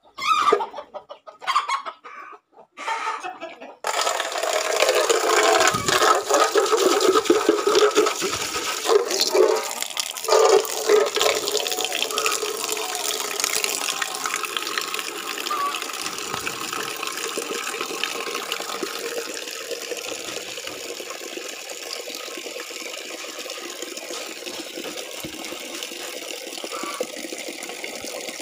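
Water running from a pipe into an aluminium pot, a steady splashing rush that starts about four seconds in, after a few brief sounds.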